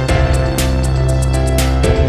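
Background music: sustained pitched chords over a bass line, with regular percussion hits.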